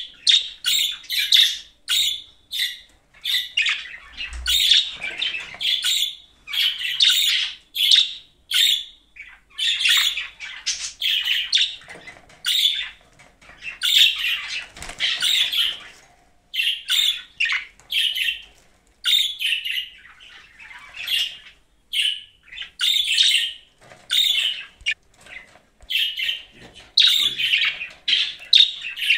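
Budgerigar chirping and chattering: a steady run of short, high chirps, about two a second, with a few longer stretches of chatter.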